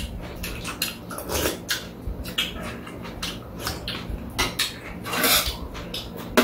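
People slurping noodles from cold soup, with chopsticks and spoons clicking against the bowls. The loudest slurps come about a second and a half in and again about five seconds in.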